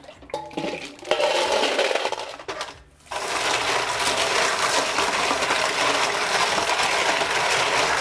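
Water poured out of a stainless steel bowl into a sink. About three seconds in, a kitchen tap starts running steadily onto live clams in the bowl while a hand rubs them for a final rinse, the shells clattering against each other and the steel.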